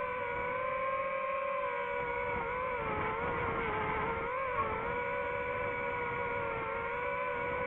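DJI FPV drone's motors and propellers whining in flight: a steady multi-pitched buzz that wavers slightly with the throttle, dipping and recovering about four and a half seconds in. Wind rumbles underneath.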